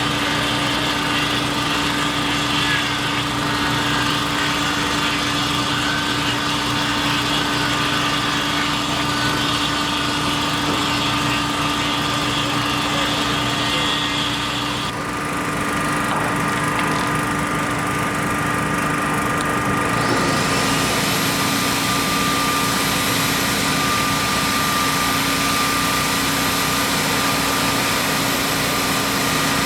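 Engine noise running steadily with a constant hum. The higher hiss drops away for a few seconds midway, then comes back.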